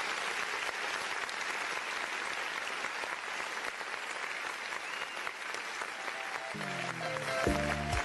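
Steady applause for several seconds. Near the end a bachata band starts to play, with pitched guitar notes first and strong bass notes coming in on a beat about a second later.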